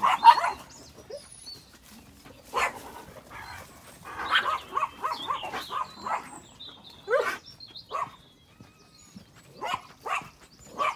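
Small dogs barking in short, sharp yaps: scattered single barks, with a quick run of about half a dozen a few seconds in.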